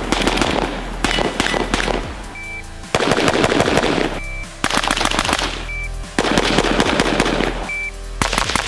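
Carbines fired rapidly in several quick strings of shots, with short pauses between strings, over background music.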